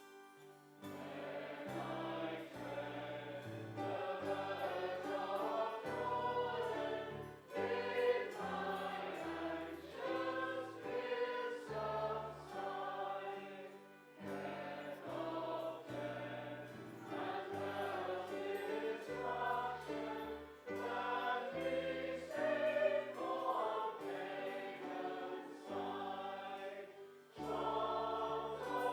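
Congregation singing a hymn with keyboard accompaniment. A soft instrumental lead-in gives way to the singing about a second in, with short breaks between lines.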